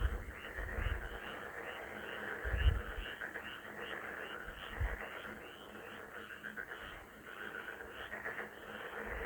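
A chorus of frogs croaking, many calls overlapping into a dense steady din, with short high calls repeating about three or four times a second. A few brief low thumps come through about two and a half and five seconds in.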